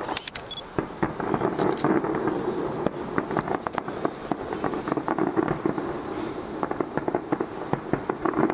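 Aerial fireworks display: a dense, uneven run of bangs and crackles from bursting shells, starting abruptly and going on without a break.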